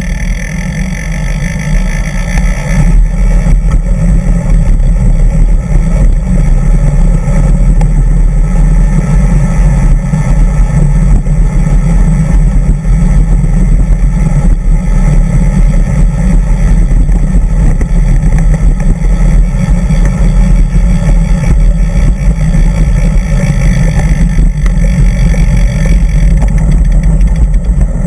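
Loud, steady low rumble of riding noise (wind on the microphone and road vibration) picked up by a camera mounted on a bicycle's handlebars while it climbs a road.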